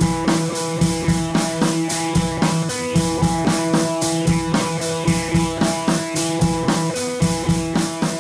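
Background music with a steady drum beat under sustained held notes.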